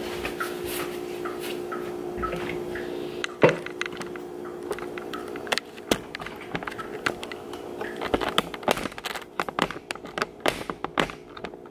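Kitchen handling noises: a scatter of sharp clicks and knocks, thickest near the end, over a steady hum.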